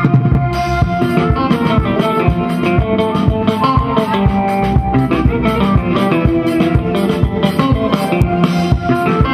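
Twarab (toirab) band music playing at full volume: held notes over plucked strings and a fast, steady drum beat.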